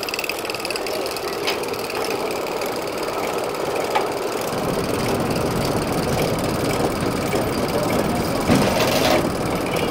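A steam-engine-driven sawmill running steadily, with a few sharp knocks. A deeper rumble joins about halfway through, and a louder clatter comes near the end.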